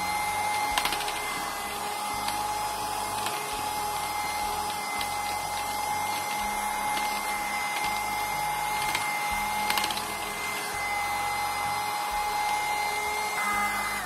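Small USB-powered mini vacuum cleaner running, a steady high whine over rushing air as its brush nozzle is worked over keyboard keys, with a few light clicks. Near the end it cuts off, the whine falling in pitch as it stops.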